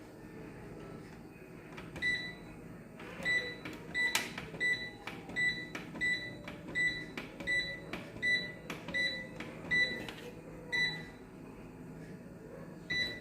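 Brandt washing machine's control panel beeping with each button press while the wash programme is set: about fifteen short, identical high beeps, roughly two a second, each with a light click, stopping near the end.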